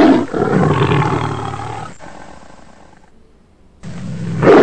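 Tiger roaring: a loud roar that trails off over about three seconds, then a second roar starting near the end.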